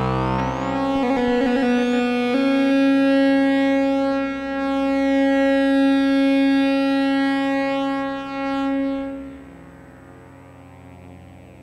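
Synthesizer running a self-playing Krell patch: long held electronic tones rich in overtones, changing pitch twice in the first few seconds. About nine seconds in the tone falls away to a much quieter drone.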